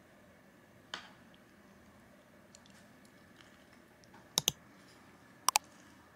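Sharp clicks against a quiet room: one softer click about a second in, then two quick double clicks near the end, the loudest sounds here.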